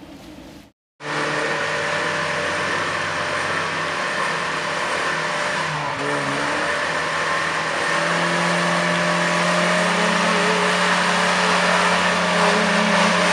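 Lada Niva's engine running hard under load as the vehicle pushes through deep mud, a steady high-revving drone that steps up in pitch about eight seconds in.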